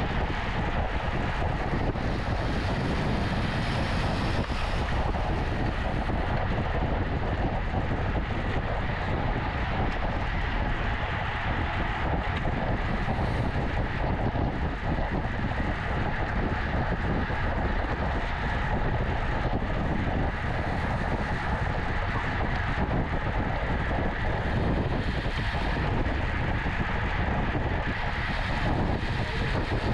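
Steady rush of wind over the microphone of a racing cyclist's camera at speed, with constant low rumble and no breaks.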